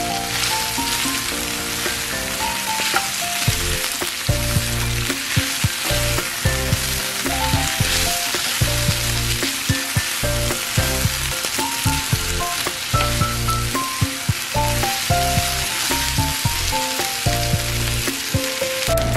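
Beef strips and sliced vegetables sizzling and crackling in a hot nonstick frying pan, stirred and turned with a wooden spatula. Background music with a melody plays over it, and a bass line comes in about three and a half seconds in.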